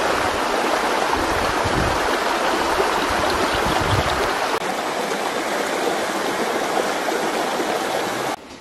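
Stream water rushing over rocks, a steady loud wash that drops away suddenly near the end.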